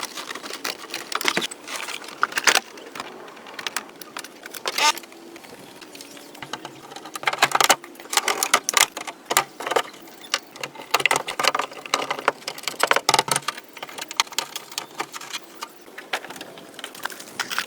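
Irregular clicks, taps and clatter of small hard objects being handled, coming in uneven clusters.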